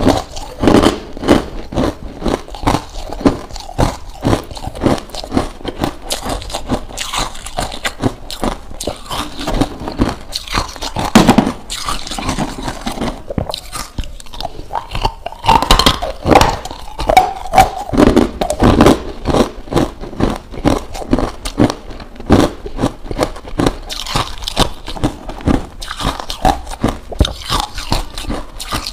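Crushed ice chunks crunched between the teeth, a rapid run of hard crunches with a few louder bites along the way.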